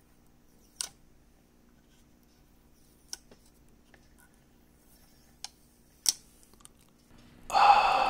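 Snap-on plastic wall plate clicking onto the smart dimmer switch body: four sharp plastic clicks spread over several seconds. Music starts near the end and is the loudest sound.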